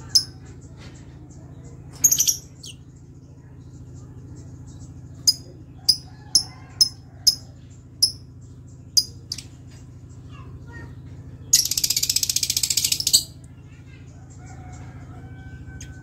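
Caged lovebirds calling: a few sharp, high chirps, then a run of about seven single chirps roughly half a second apart. Later comes a harsh, rapid chatter lasting about a second and a half, the loudest sound. A steady low hum runs underneath.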